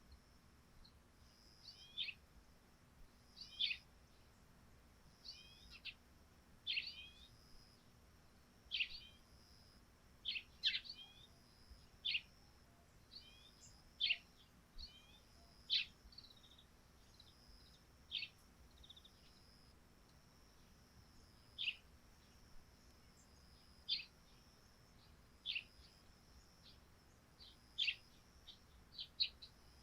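Eurasian tree sparrows chirping: short, sharp, falling chirps, one or two at a time every second or two, with a pause of a few seconds in the middle. A faint steady high-pitched hum runs behind them.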